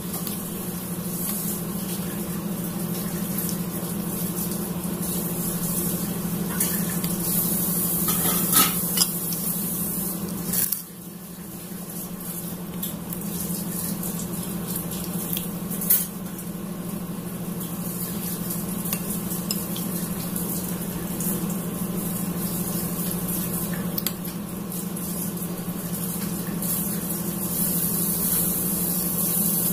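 Metal spoon stirring and scraping lontong and chicken curry in a ceramic bowl, with a few sharp clinks against the bowl, over a steady low hum.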